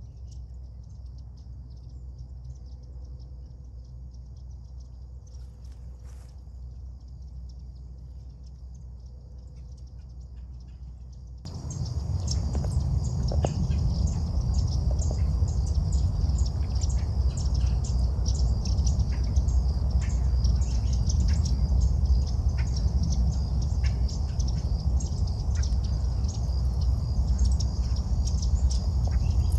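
Birds chirping and calling in many short high notes over a steady low rumbling background. The whole sound gets abruptly louder about a third of the way in, and the chirps become dense after that.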